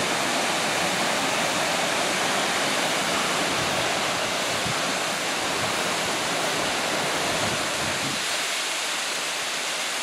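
Tall tiered waterfall rushing, a steady, even hiss of falling water.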